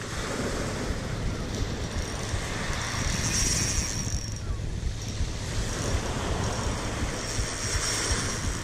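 Wind buffeting the microphone over small waves washing against the shore and groyne. A faint high whirring comes twice, about three seconds in and again near the end.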